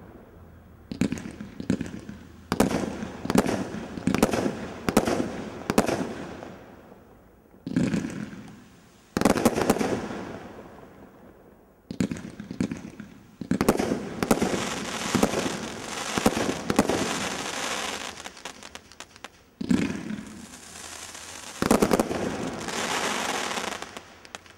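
Category 3 combination Roman candle firing: a run of sharp reports, often one or two a second with short pauses between runs. Around the middle and again near the end come stretches of dense crackling from the bursting stars.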